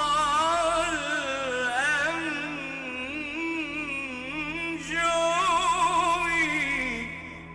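A male singer in wordless, melismatic Arabic religious chanting, drawing out long ornamented notes with a wide vibrato over a sustained instrumental drone. The voice tails off near the end.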